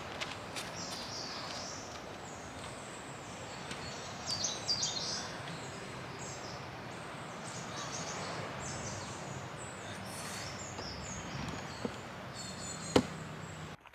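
Outdoor ambience: a steady background hiss with birds chirping on and off. A single sharp click near the end is the loudest sound.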